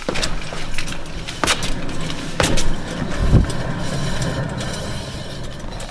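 Failing rear wheel bearing of a 2015 Honda Accord as the raised wheel turns: a steady low hum with a few sharp clicks, the loose bearing balls moving around inside the worn bearing. It eases off slightly near the end.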